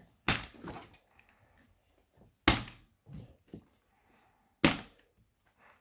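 Three sharp thuds about two seconds apart: a ball of slime being bounced against a hard surface.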